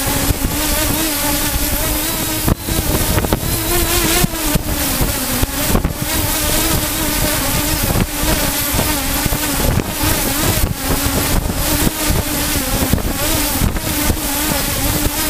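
Small aircraft's motor and propeller running steadily in flight, heard from a camera mounted on the craft: a continuous hum with a slightly wavering pitch over heavy wind rush, with brief cut-outs.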